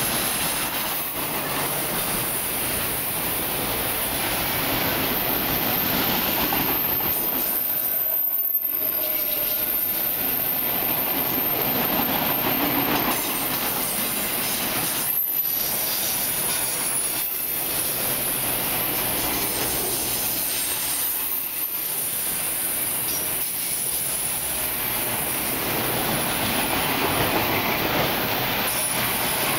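Empty autorack freight cars rolling past close by: a steady rumble and rattle of steel wheels on rail, with thin, high-pitched wheel squeal over it and a few brief dips in the noise.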